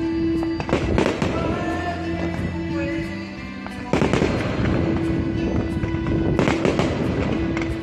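Fireworks and firecrackers popping and crackling in quick succession, growing into a denser volley about four seconds in, with music playing underneath.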